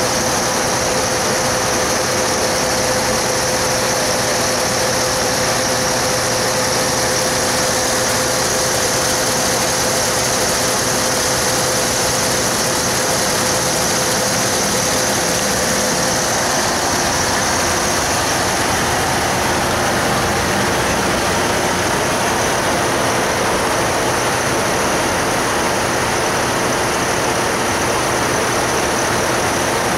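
MAN TGX 680's 16.2-litre V8 diesel idling steadily, with a steady tone above the engine noise that fades out about halfway through.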